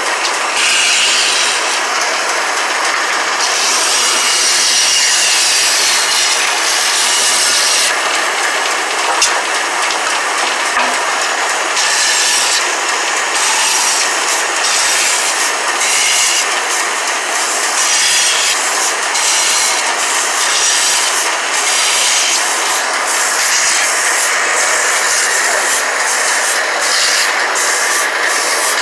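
Bandsaw running steadily while its blade cuts through a thick block of wood: a loud, even, hissing saw noise.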